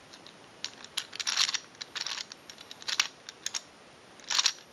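Plastic gear cube being twisted by hand: sharp plastic clicks and several short clattering bursts as its gear pieces turn and mesh.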